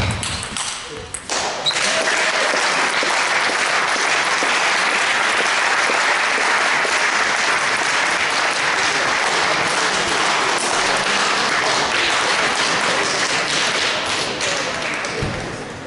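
A few table tennis ball strikes, then audience applause breaking out about a second and a half in, steady and sustained and tapering near the end. The applause greets the winning point of the match.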